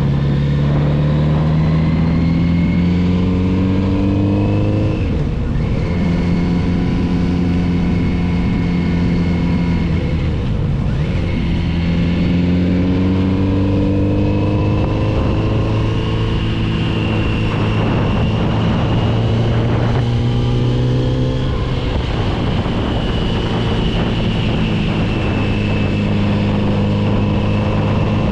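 Kawasaki Z900RS inline-four engine pulling through the gears while riding. Its pitch climbs under throttle and drops at gear changes or throttle lifts, about three times, over a steady rush of wind and road noise.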